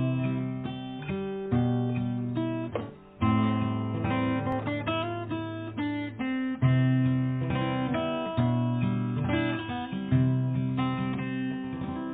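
Acoustic guitar strumming chords alone as the instrumental introduction to a song, the chords changing every second or two. It breaks off briefly about three seconds in and dies away near the end.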